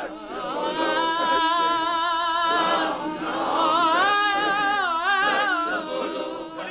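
Voices singing a slow lament with long, wavering held notes over a steady drone, fading away near the end.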